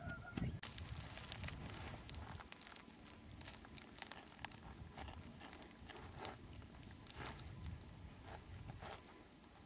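Faint rustling with irregular light clicks and crackles, from a handheld camera being carried and handled while moving through dry brush.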